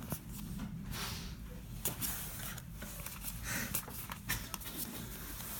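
Trading cards being handled and flipped through: soft paper rustles and small scattered clicks of the cards.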